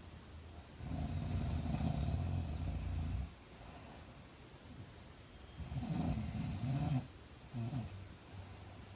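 A sleeping woman snoring: a long snore from about a second in, lasting over two seconds, another around six seconds in, and a short one near the end.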